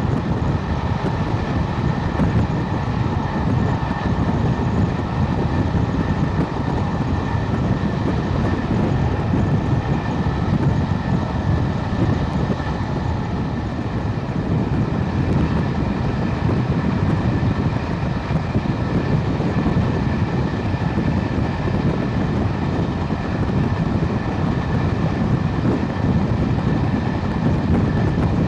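Railway train running steadily: a continuous low rumble with a faint high whine above it and no distinct exhaust beats.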